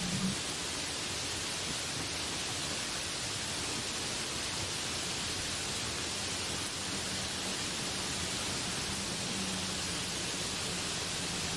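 Heavy rain pouring steadily onto trees and broad banana leaves: a dense, even hiss that does not let up.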